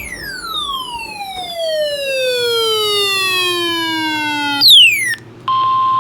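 A siren-like tone with many overtones sliding steadily down from high to low over nearly five seconds, then a short second fall. About five and a half seconds in, the steady 1050 Hz NOAA Weather Radio warning alarm tone starts.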